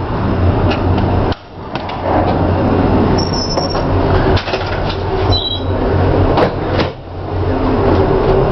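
Steady low drone of a container ship's machinery heard inside the accommodation block, a deep hum with a rushing noise over it. It dips sharply twice, and there are scattered clicks and knocks and a couple of short high squeaks.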